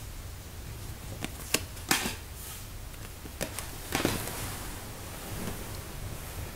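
Playing-size tarot cards being laid down one after another on a wooden table: a handful of short taps and slaps of card on wood, over a low steady hum.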